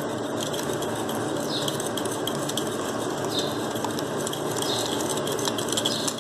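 Wire whisk beating eggs and powdered sugar by hand in a glass bowl: fast, continuous clicking and scraping of the whisk against the glass, with a brighter swish about every two seconds.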